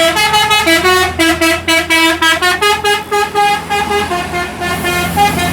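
A bus's Basuri 'telolet' melody horn playing a rapid tune of short stepped notes over the low hum of the engine.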